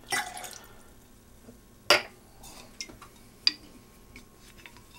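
Bourbon poured from a steel jigger into a glass mixing glass, a short splash at the start, followed by a few sharp knocks and clinks of glass and metal, the loudest about two seconds in.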